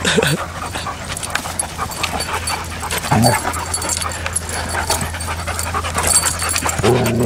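Dogs play-fighting: heavy panting and scuffling, with short low vocal sounds about three seconds in and again near the end.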